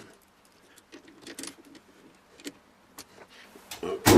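Scattered light clicks and knocks of a tap and spacer being handled and set up for power tapping, then a sharp click near the end just as the tapping drill's motor starts.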